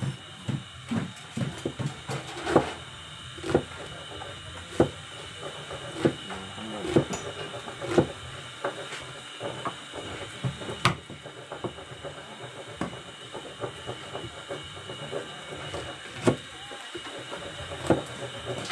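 Knife chopping and slicing on a cutting board: irregular sharp knocks about once a second, with faint voices in the background.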